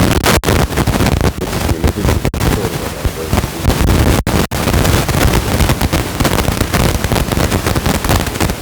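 Heavy wind buffeting the microphone, a loud rough rumble with a few brief dropouts.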